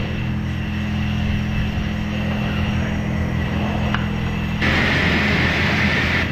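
Pressure washer: its motor runs at a steady pitch while the hissing water spray cuts off at the start and comes back on abruptly about four and a half seconds in, as the trigger is released and pulled again.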